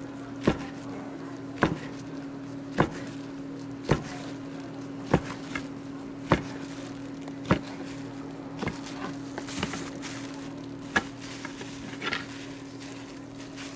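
Knife slicing a gimbap roll into pieces, each cut ending in a sharp tap of the blade on a plastic cutting board, a little over once a second, about ten cuts. A steady low hum runs underneath.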